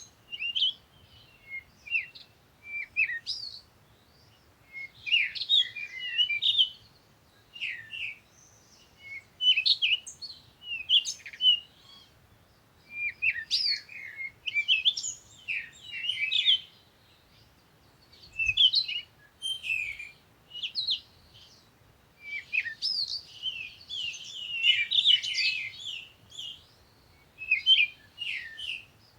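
Songbirds chirping and trilling in quick bursts of short, high notes, with brief pauses between phrases.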